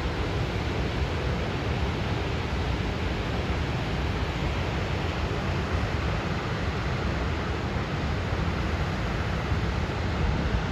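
Steady rushing of water overflowing a full dam's spillway and weir, one even noise with no break, with wind buffeting the microphone and adding a low rumble.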